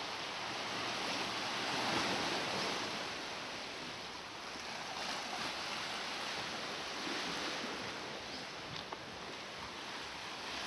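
Small sea waves washing onto the shore, mixed with wind: an even rush that swells and eases.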